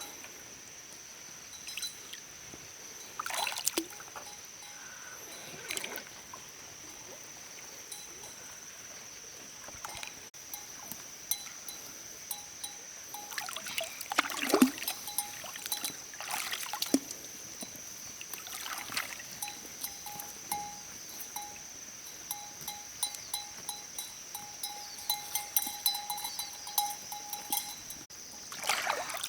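Water splashing and sloshing now and then, as from hands or feet working in shallow water while digging clams, over a steady high-pitched hum.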